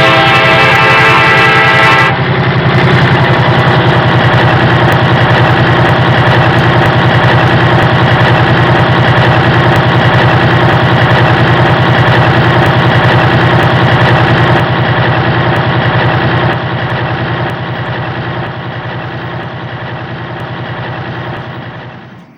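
Model RS11 diesel locomotive running with its train: a loud, steady diesel-engine-like rumble, opening with a couple of seconds of a horn-like chord. The sound fades out in steps over the last several seconds.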